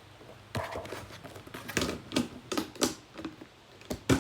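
Homemade slime being squeezed and pulled apart by hand, making an irregular run of squishes and clicking pops. The sharpest pop comes near the end.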